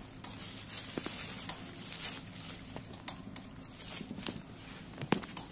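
A thin plastic carrier bag rustling and crinkling in irregular small clicks as a kitten moves and feeds inside it.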